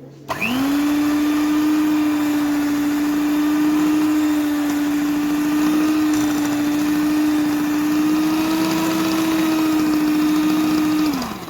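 Electric hand mixer running at a steady speed, beating a creamy dough of fat, sugar and flour. It spins up just after the start and winds down shortly before the end.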